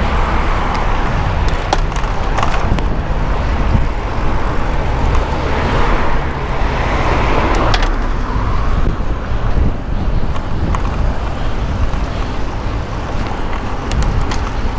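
Steady city traffic and road noise heard from a moving bicycle, with a heavy low rumble on the microphone and a few short clicks.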